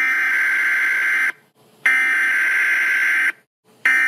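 Electronic emergency alert tone sounding in long, harsh beeps, each about a second and a half long with half-second gaps: two full beeps, then a third beginning near the end.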